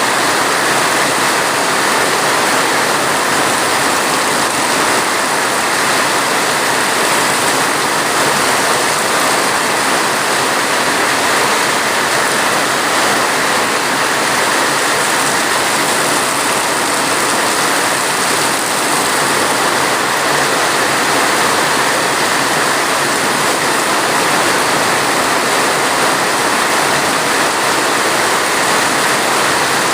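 Steady rain falling: a constant, even hiss in which no single drops or other events stand out.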